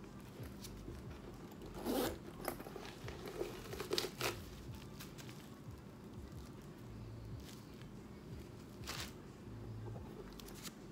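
Handling noise from a leather satchel and the tissue paper wrapped around its handles: a few short rustles and scrapes, the loudest about two and four seconds in, with another near nine seconds.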